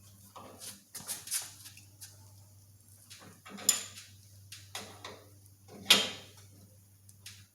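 Irregular clicks, clinks and knocks of a hose quick connect fitting and hand tools being handled at a workbench, with two sharper clanks about three and a half and six seconds in, over a steady low hum.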